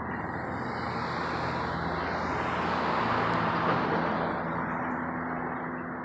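Airplane flying overhead: a steady rushing engine noise that swells to its loudest a little past the middle, then fades away.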